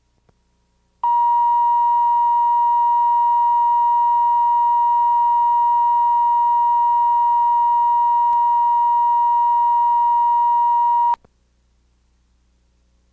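Steady, loud 1 kHz reference tone that accompanies colour bars on a videotape, starting abruptly about a second in, holding one unchanging pitch for about ten seconds, then cutting off sharply. Faint tape hum is heard before and after it.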